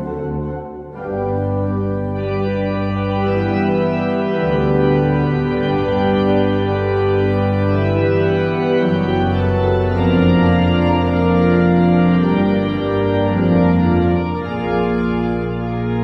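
Organ playing sustained chords over long held low bass notes, the harmony changing every second or two. The sound grows fuller and louder about a second in.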